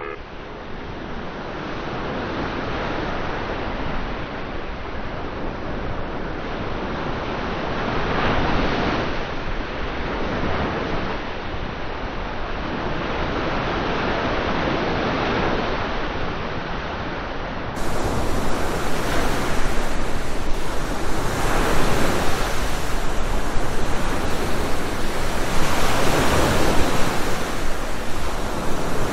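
Ocean surf, a steady wash of breaking waves that swells and eases every few seconds. Partway through it turns brighter and a little louder.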